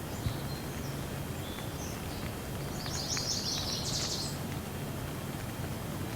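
Light rain ambience: a steady low rumble with faint scattered drips. A bird chirps in a quick run of high notes about three seconds in.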